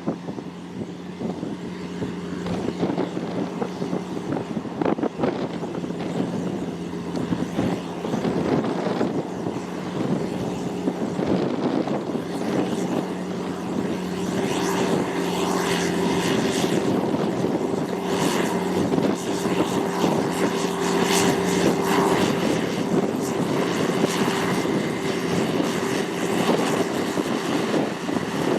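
Farm tractor engine running steadily under field work, a continuous drone that grows louder, its note shifting higher about halfway through.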